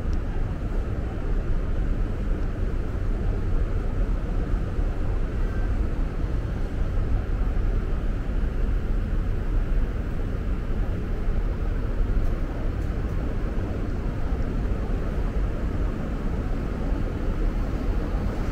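Steady low rumbling background noise of a large, near-empty indoor concourse, with no distinct events.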